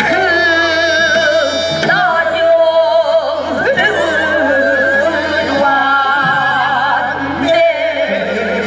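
Korean traditional music played live: several long held melody lines bend and waver in pitch with heavy vibrato over lower sustained tones.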